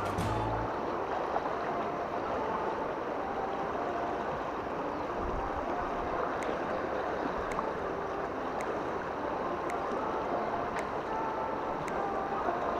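Fast stream water rushing and gurgling over rocks, a steady even wash with light ticks about once a second in the second half.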